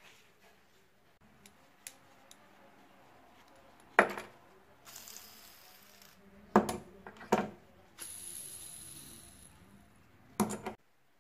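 Steel ball bearings and thin metal rings handled and set down on a wooden board: a handful of sharp metallic clinks and knocks, with two stretches of light scraping between them.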